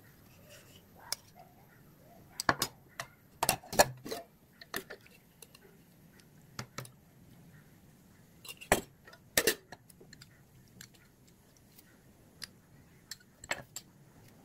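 Scattered clinks and knocks of a spoon against dishes and plates as food is served, with about a dozen sharp, separate sounds. The loudest come in a cluster two to four seconds in and again around nine seconds in.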